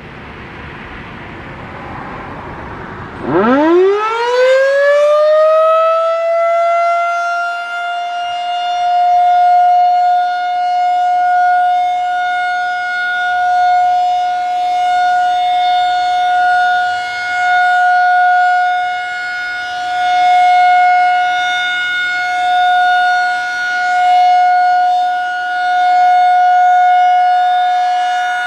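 Federal Signal 2001-SRN single-tone rotating siren starting a full alert. A rushing noise builds for about three seconds, then the tone winds up quickly and settles into one steady, loud wail. It swells and fades every couple of seconds as the siren head rotates.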